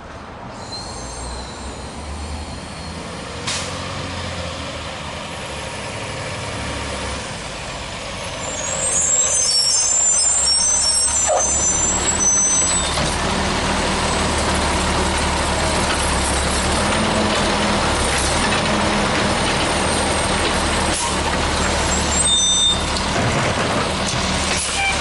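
Automated side-loader garbage truck's diesel engine growing louder as it pulls up, with high brake squeals and air-brake noise as it stops about ten seconds in. It then runs steadily while its hydraulic arm reaches out for the bin.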